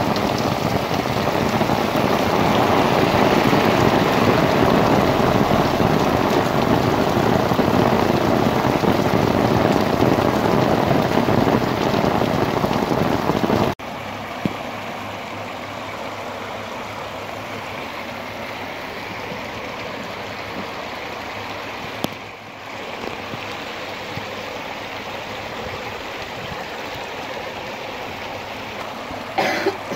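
Heavy rain pouring onto a paved street and roundabout, a loud steady hiss. After a sudden cut about fourteen seconds in, a quieter steady wash of rainwater running along a flooded kerb and street.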